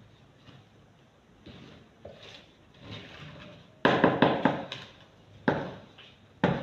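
Wooden spoon stirring thick cupcake batter in a plastic bowl: soft, slow stirring at first, then, about four seconds in, a run of fast beating strokes that knock and scrape against the bowl, with a couple more single strokes near the end.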